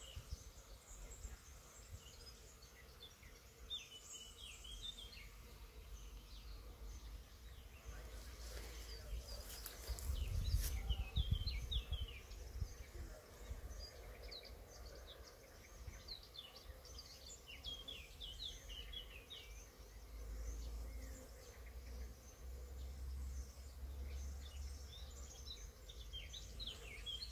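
Honeybees humming faintly and steadily around a tree-mounted hive box, with small birds chirping in quick short notes throughout. A low rumble on the microphone swells about ten seconds in, with a few brief knocks.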